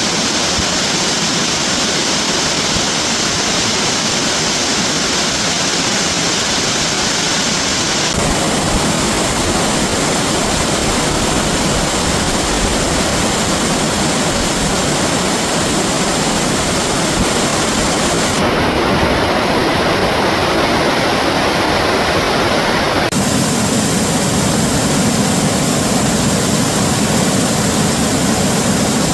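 Rushing water played in reverse: a loud, steady roar of dense noise with no breaks. Its tone changes suddenly three times, about a third of the way in, past the middle and near the last quarter, where one stretch of recording is spliced to the next, the last one heavier and lower.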